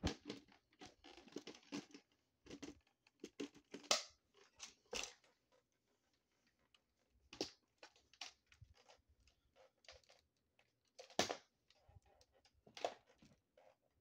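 Faint handling noise: irregular clicks, taps and rustles, with no motor running.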